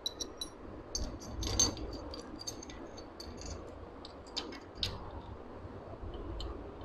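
Light metallic clicks and small rattles, scattered over the first five seconds, as steel shift forks are handled and fitted onto the gear shafts of a Honda CG125 gearbox.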